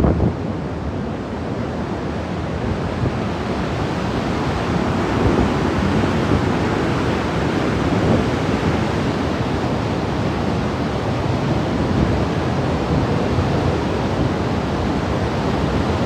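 Heavy flood water rushing steadily through a river barrage, a continuous noisy rush, with wind on the microphone.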